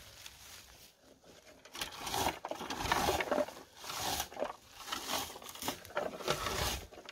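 Berry-picking scoop raking through bilberry bushes: repeated rustling swishes of leaves and twigs, starting about two seconds in.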